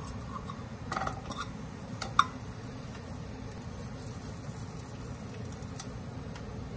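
Sliced garlic tipped from a small glass bowl into a nonstick pan of olive oil: a few light clicks and taps about one to two seconds in, the sharpest just after two seconds. Then a few faint ticks over a steady low hum as chili flakes are sprinkled in.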